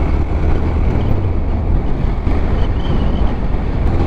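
Motorcycle engine running steadily while riding, a low, even rumble, with wind rushing over the microphone.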